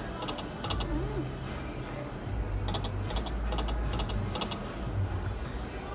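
Konami video slot machine spinning its reels: several short clusters of quick clicks as the reels stop, over a low steady hum.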